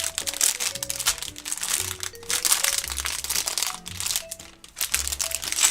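Plastic bags of Lego pieces crinkling as they are handled, in dense, irregular rustles, over background music.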